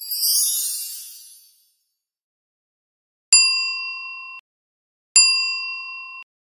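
A high, shimmering sparkle that fades out over the first second and a half, then two identical bright ding chimes about two seconds apart, each ringing for about a second before cutting off abruptly.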